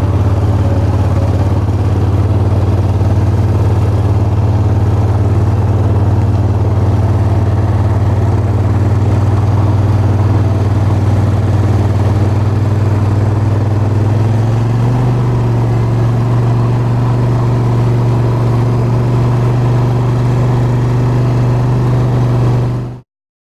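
ATV engine running steadily close by, its pitch stepping up slightly about fifteen seconds in. The sound cuts off suddenly near the end.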